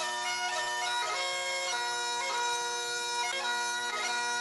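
Bagpipe music: a melody of changing notes played over steady held drones, played back through a video call's shared audio.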